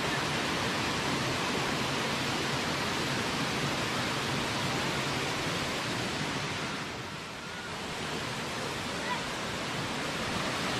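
Rushing water of a forest waterfall cascade, a steady noise with no pitch. It dips briefly about seven seconds in and grows louder near the end.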